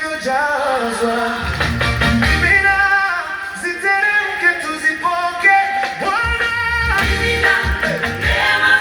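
Singing voices with musical accompaniment; a heavy bass comes in about a second and a half in, drops out, and returns about six seconds in.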